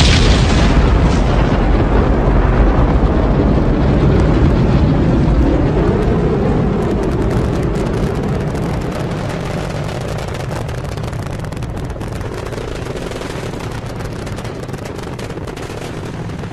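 Rocket launch engine noise: a loud, deep rumble with crackling that slowly fades as the rocket climbs away.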